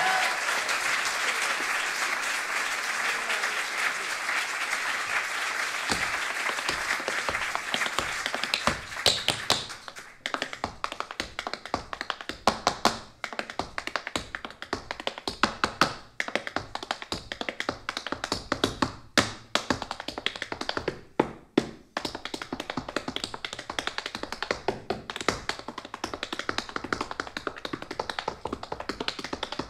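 Audience applause dies away over the first several seconds. Then tap shoes strike a wooden stage floor in fast, rhythmic, unaccompanied tap-dance patterns.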